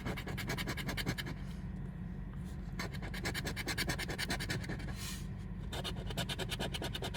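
Scratch-off lottery ticket being scratched in rapid back-and-forth strokes, with two short pauses.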